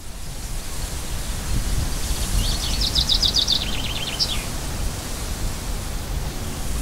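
Outdoor nature ambience: a steady rushing noise with a bird's rapid run of high chirps from about two to four seconds in.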